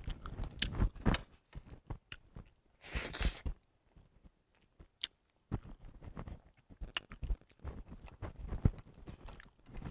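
Close-up chewing and biting of food, with small wet mouth clicks and light taps scattered through, a short rustle about three seconds in and a brief quiet gap after it.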